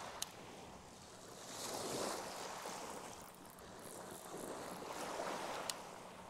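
River waves washing against the bank in slow swells, rising and falling about every three seconds. Two short sharp clicks, one just after the start and one near the end.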